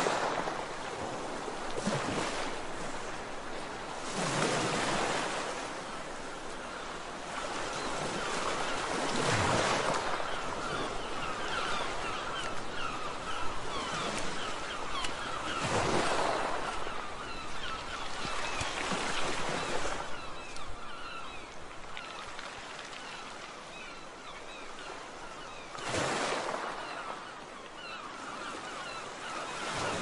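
Waves and surf washing, rising and falling in surges, with gulls calling in many short cries over the second half.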